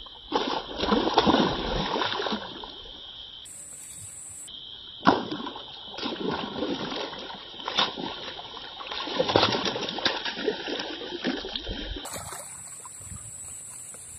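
A hooked snakehead thrashing at the surface of shallow, weedy water, splashing in repeated bursts with a sharp slap about five seconds in.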